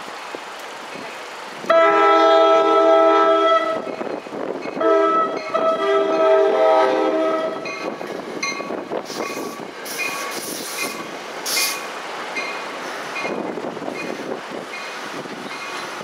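NJ Transit commuter train's horn sounding two long blasts as the train reaches the grade crossing. The train then rolls through the crossing while the crossing's mechanical bell rings steadily, about two strokes a second.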